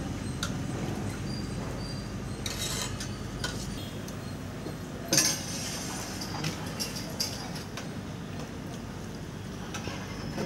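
Metal clinks and knocks of a steel ladle against large steel serving pots, scattered and irregular, the sharpest about five seconds in, over a steady low hum.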